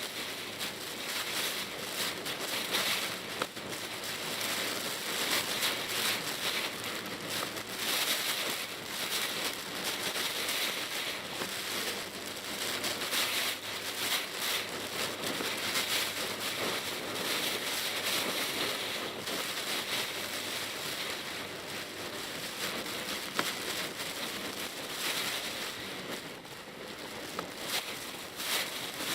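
Typhoon rain hitting a moving Mitsubishi Pajero Mini, heard from inside the cabin: a dense crackling patter of drops on the roof and windshield over steady road noise.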